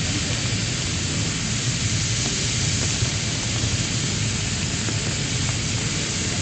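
Simulated cloudburst from fire-brigade water spraying: a steady, dense rush of falling water with a low rumble underneath.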